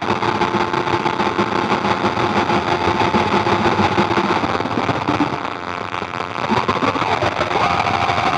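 Experimental noise drone from a Roland V-Synth XT played with a Haken Continuum Fingerboard: a dense, gritty noise wash with held tones underneath, its filter, resonance and overdrive shaped by finger position and pressure. The level dips briefly past the middle, and pitches slide downward near the end.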